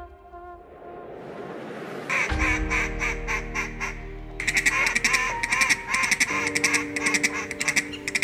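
Mallard-style quacking and rapid chatter, starting about two seconds in and getting denser and louder about four seconds in, over music with held notes.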